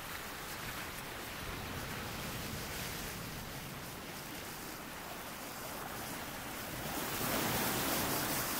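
Ocean surf washing onto the shore: a steady rush of waves that swells louder near the end as a wave breaks.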